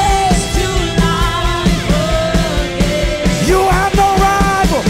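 Live worship music: a group of singers singing a congregational song over instrumental backing with a steady beat.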